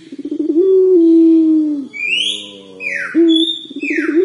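Young puter pelung, a domestic collared dove, cooing: a quick rolling trill that swells into one long, low held coo, trailing slightly down and ending about two seconds in, then a short note and a second trill that leads into the next long coo at the end. It is a young bird practising the breed's long call. Another bird chirps in quick sweeping notes between the coos.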